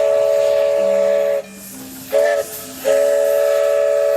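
Steam locomotive whistle blowing several notes at once with a hiss: a long blast that stops about a second and a half in, a short toot, then another long blast from about three seconds in.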